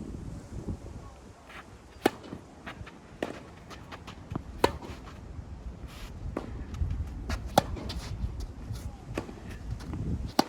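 Tennis ball being hit back and forth in a singles rally: sharp racket-strike pops, the loudest about every three seconds with fainter hits and bounces between. A low rumble of strong wind on the microphone runs underneath.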